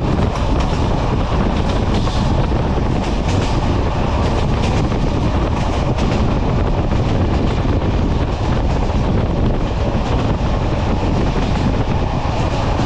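Passenger train carriage running along the track, heard at an open window: a steady loud rumble and rush of passing air with the wheels clattering over the rails.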